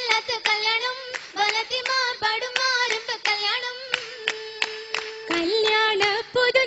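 Oppana performers singing a Mappila song, with rhythmic hand claps in a quick, uneven beat.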